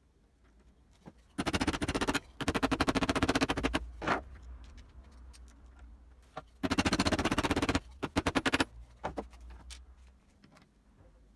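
Hand tool rasping on a small aluminium part clamped in a bench vise. It comes in two clusters of gritty scraping bursts, each made of rapid strokes, with a pause of a few seconds between them.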